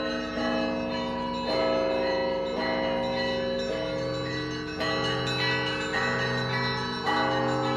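Russian Orthodox monastery bells, a set of seventeen rung by a single bell-ringer with ropes and a foot pedal, chiming in overlapping strokes. A new stroke comes about once a second, while the earlier bells keep ringing over a deep steady hum.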